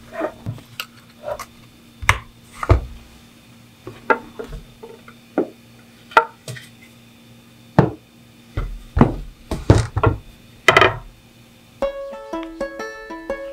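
A stitched leather axe sheath being worked and handled over a steel axe head: a series of irregular creaks, taps and knocks of leather and steel. Near the end, plucked-string music starts.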